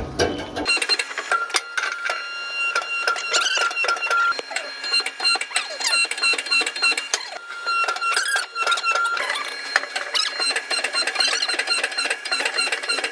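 Rapid, irregular metal-on-metal striking with a steady high ringing from the struck steel.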